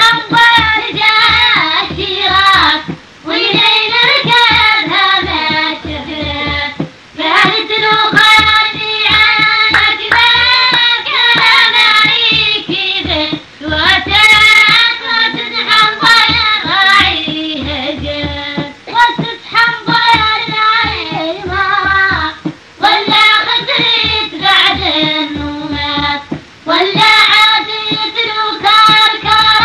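Music with a high solo voice singing a melody in phrases over a beat.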